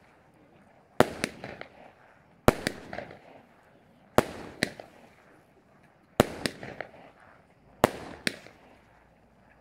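Fireworks going off in a steady sequence: five sharp bangs about one and a half to two seconds apart. Each is followed a fraction of a second later by a smaller second bang and a short crackle.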